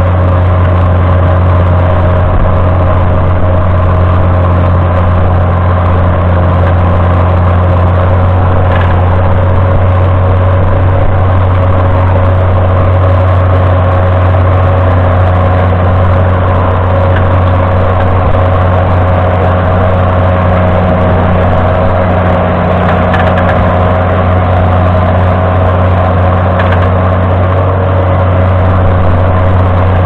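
John Deere 7710's 8.1-litre six-cylinder diesel engine running under load as the tractor pulls a deep reversible plough through the soil, holding a steady pitch throughout, with a few faint clicks.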